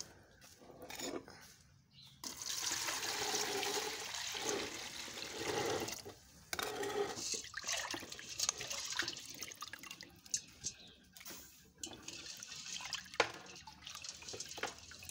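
Washed, soaked maize and water being poured into a cooking pot: a steady rushing pour in two spells, followed by a few light knocks and clicks.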